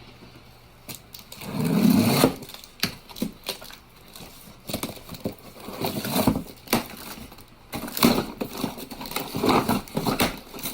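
Cardboard boxes and packaging being handled and opened: a loud scraping rustle about two seconds in, then scattered knocks and crinkling.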